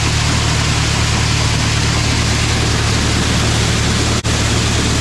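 Ford Jubilee tractor's four-cylinder gasoline engine running steadily with a low hum, briefly cut off for an instant about four seconds in.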